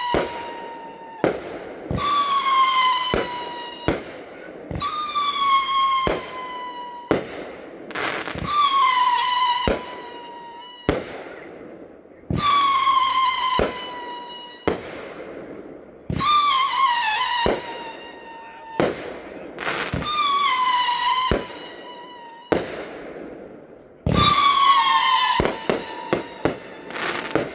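Miracle 'Strategic Attack' firework cake firing whistling shots. About every three to four seconds a shot goes up with a shrill whistle that falls slightly in pitch over a second or two, with sharp bangs in between.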